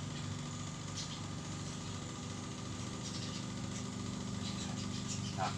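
Steady low mechanical hum, like a small engine or motor running, with a few faint clicks. A brief rising, voice-like sound comes near the end.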